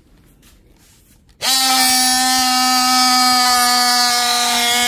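Oscillating multi-tool switched on about a second and a half in, its plunge-cut blade cutting into a strip of wood clamped in a bench vise, running at one steady pitch.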